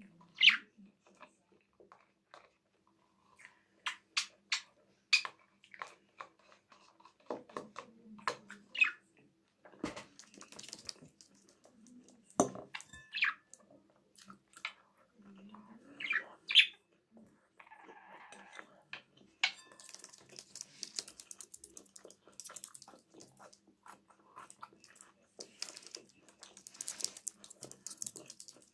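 Close-up eating sounds: chewing and cutlery clicking against a bowl. A pet budgerigar chirps in between. The clicks grow denser in the second half.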